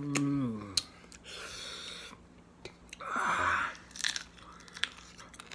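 A man chewing a handful of rice and goat meat eaten by hand, with wet mouth clicks and lip smacks. A short falling hum opens it, and two breathy hisses follow, the second louder, about three seconds in.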